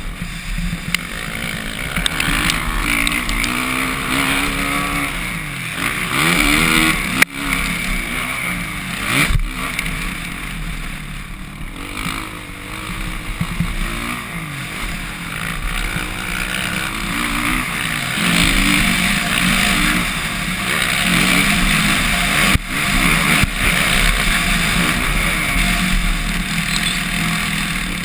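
A motocross dirt bike engine heard close up from a camera on the rider's own bike. It revs up and down again and again as the rider works the throttle over the track, over a steady rush of wind, with a few sharp knocks.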